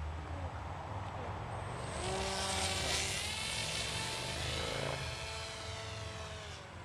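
Electric RC plane's ElectriFly Ammo 3180 kV inrunner brushless motor and propeller whining as it flies past: the whine swells about two seconds in, then falls slightly in pitch and fades near the end.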